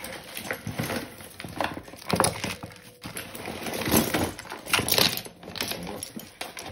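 A heap of costume jewellery (metal chains, beads and pearls) being tipped out and spread by hand on a cloth-covered table, clinking and rattling irregularly, with louder clatters about two, four and five seconds in.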